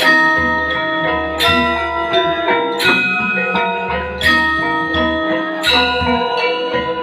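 Balinese gamelan music: bronze metallophones struck with mallets play a ringing, layered melody, with a strong accented stroke about every second and a half.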